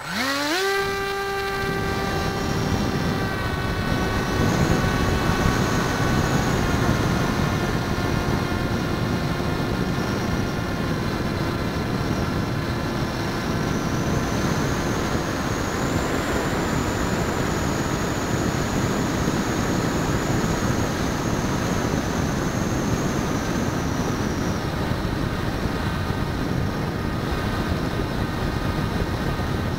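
RC plane's motor and propeller heard through its onboard keychain camera: the motor spins up with a rising whine right at the start, then holds a nearly steady pitch in flight, with wind rushing over the camera.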